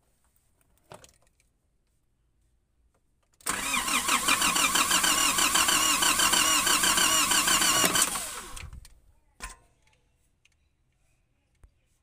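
Nissan ZD30 four-cylinder diesel being cranked over by its starter for about four and a half seconds during a compression test, in quick, even pulses as each piston comes up on compression, then winding down. Short clicks come just before and just after the cranking.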